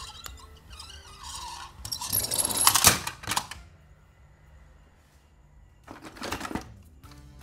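Toy cars clattering against one another as a hand handles them, loudest from about two to three and a half seconds in, with a shorter rattle about six seconds in.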